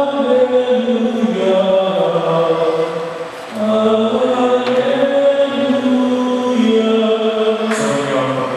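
Voices singing a slow Tagalog hymn in long held notes, with a short break between phrases a little over three seconds in.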